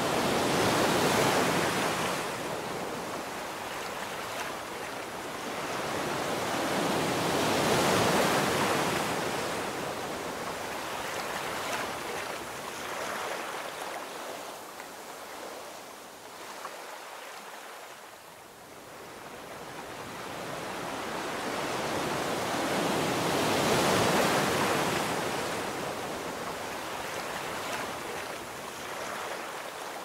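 Ocean surf washing onto a sandy beach in slow swells that rise and fade, loudest near the start, about eight seconds in and again about twenty-four seconds in, with a quieter lull between.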